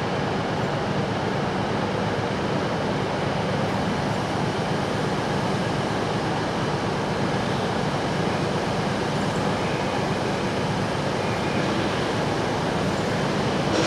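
LMS Royal Scot class steam locomotive 46115 drifting slowly into a station platform: a steady hiss and rumble, with no exhaust beats.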